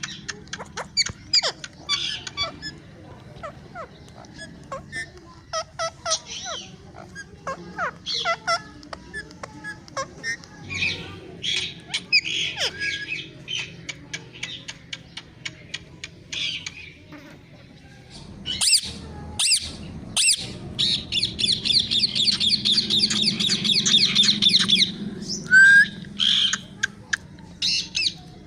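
Ringneck parrot (rose-ringed parakeet) calling: a string of short, sharp squawks and chirps, with a fast rattling run of calls about three quarters of the way through, over a low steady hum.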